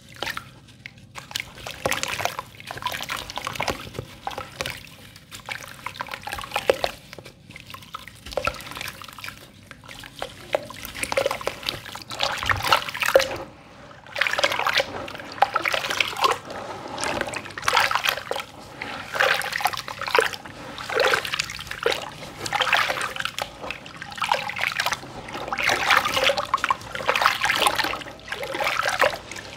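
Hands sloshing and swishing through a watery sand-and-cement slurry in a stainless-steel basin, with irregular splashes and trickling water.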